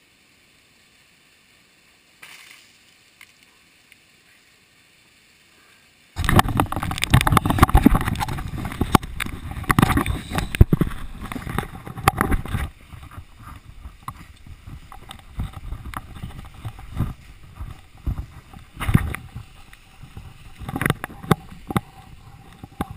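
Almost silent for about six seconds, then a sudden loud, muffled rumbling and knocking as the camera is jostled and carried about. After about thirteen seconds it eases to lighter, irregular knocks and rustles of handling while moving through undergrowth.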